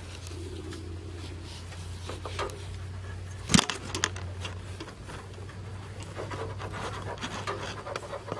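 Handling noise from a handheld camera being carried about, with rustling and scattered clicks over a steady low hum, and one sharp knock about three and a half seconds in.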